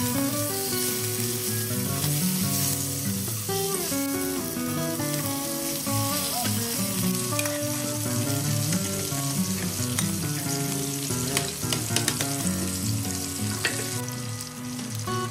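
Mackerel fillets sizzling in hot oil in a nonstick frying pan, later with sliced onion and carrot, a steady frying hiss. Background music plays melodic notes over it, and a few sharp clicks of a metal spoon against the pan come in the second half.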